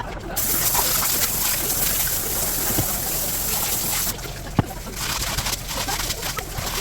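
Water running in a steady stream that stops about four seconds in, followed by light clicks and one sharp knock.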